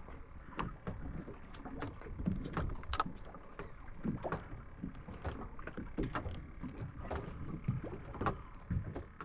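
Fishing boat rocking on the open sea: water slapping against the hull, with irregular knocks and clicks through it.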